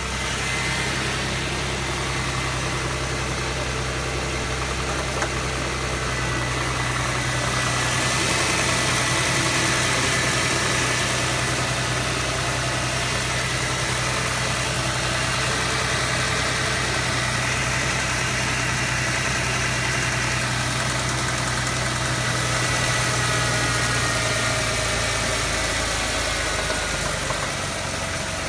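2006 Jaguar X-Type 3.0 V6 engine running steadily, with the ticking, knocking noise its owner is recording. The level rises slightly about 8 seconds in and again later.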